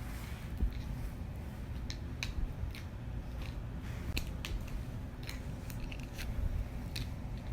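Chihuahua chewing and biting on a hard object, irregular sharp clicks and crunches.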